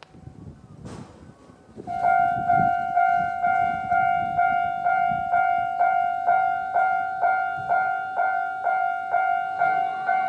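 Japanese level-crossing warning bell starting about two seconds in and ringing steadily at about two strikes a second, the crossing's standard alarm for an approaching train. Before it, a faint low rumble and a single click.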